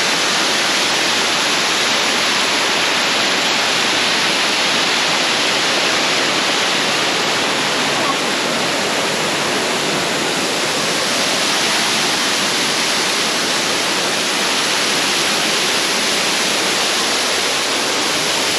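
Waterfall rushing close by: a loud, steady roar of falling water that never lets up.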